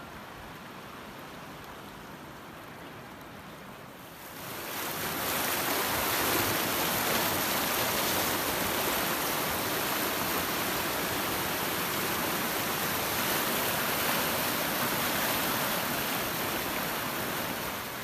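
River water rushing over its bed in a steady roar, which grows louder about four and a half seconds in and then holds steady.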